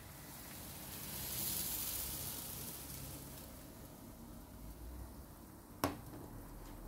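Crêpe batter sizzling in a hot pan, the hiss swelling about a second in and then fading, followed near the end by one sharp knock as the pan is set down on a glass-top induction hob.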